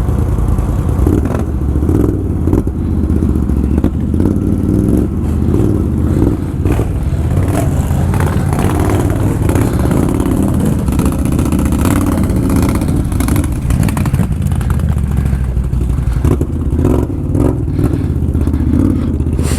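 Can-Am ATV engine running hard under load for the whole stretch, with scattered clattering knocks.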